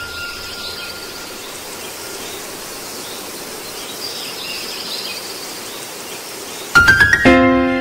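Steady hissing ambient noise with faint high chirps. Near the end music comes in: a few sharp strikes, then a sustained chord.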